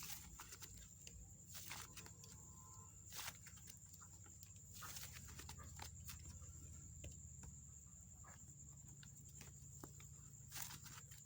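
Hands handling soft clay slime: faint, scattered sticky clicks and taps over a low steady background hum.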